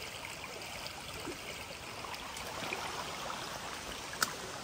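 Trout stream water running steadily, with a single sharp click about four seconds in.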